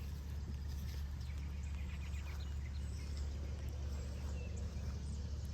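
Outdoor ambience: faint, short bird chirps over a steady low rumble.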